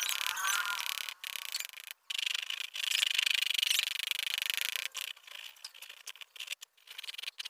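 Graphite pencil scratching on paper in hatching strokes, broken by short gaps where the pencil lifts. It is densest and loudest a few seconds in and sparser near the end.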